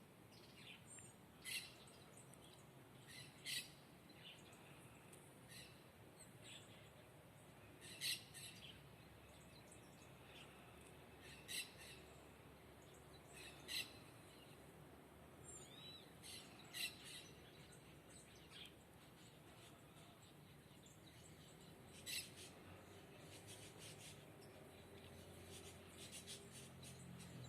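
Small garden birds calling: short, high chirps every few seconds, with a few brief tweets between them, over a faint background hush.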